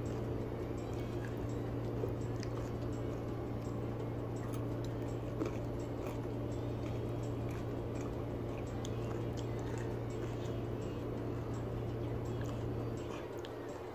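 A person chewing mouthfuls of spaghetti, with faint wet mouth sounds and small clicks of a metal fork, over a steady low hum that stops near the end.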